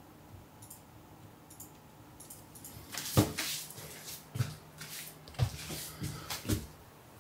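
Footsteps on a wooden floor: a few faint clicks, then about five or six thuds over some three and a half seconds, starting about three seconds in, the first the loudest.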